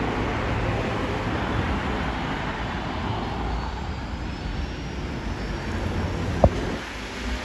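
Aircraft engine noise: a steady, deep rumble that slowly eases off, with one sharp click near the end.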